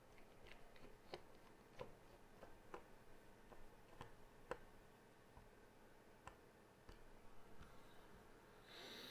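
Faint, irregular light clicks and ticks of a small magnetic screwdriver and tiny screws being worked against the plastic chassis of an N gauge model train.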